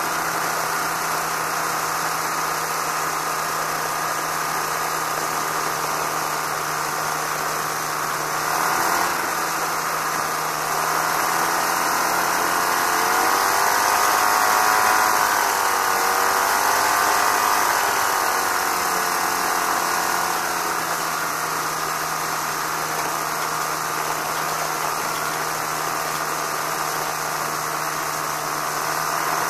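Challenger II ultralight's engine and propeller idling steadily on the ground. The pitch drifts up and down a little between about ten and twenty seconds in.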